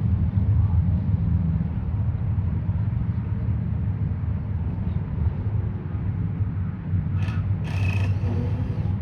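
A steady low rumble runs underneath. About seven seconds in come two short, harsh, raspy calls, the begging calls of a hungry loggerhead shrike fledgling.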